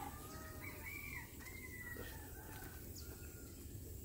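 A rooster crowing faintly: one drawn-out crow lasting about two seconds in the first half, over a low steady outdoor background.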